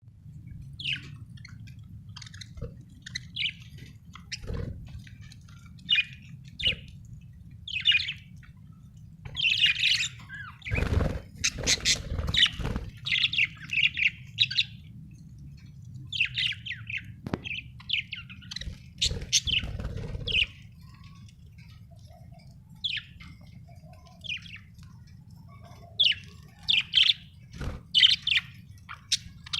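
Budgerigars chirping in many short, scattered calls over a low steady hum, with a few dull thumps.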